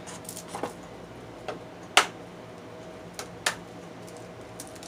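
A few light clicks and taps. The sharpest comes about two seconds in and another about a second and a half later: a raw egg being tapped on the rim of a glass mixing bowl to crack it.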